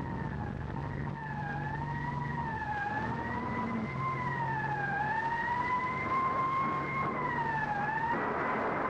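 A siren wailing, its single tone slowly sliding up and down over and over, above a low hum that comes and goes; a noisy rush builds under it near the end.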